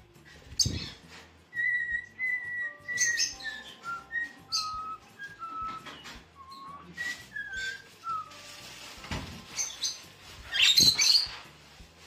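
Small pet parrots, rosy-faced lovebirds and a cockatiel, whistling and chirping: a run of clear whistled notes that step up and down in pitch, mixed with short chirps. A couple of sharp knocks, and a loud harsh call about eleven seconds in.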